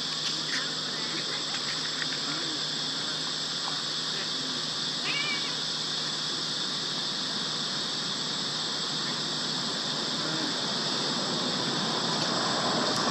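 Baby macaque giving a few faint, short squeaks that rise and fall, over a steady high-pitched hiss.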